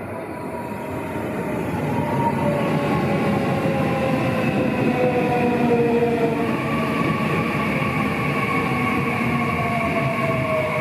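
JR Central 315 series electric train pulling in and slowing: its motor whine falls steadily in pitch in several tones over the rumble of the wheels, growing louder as the cars run past.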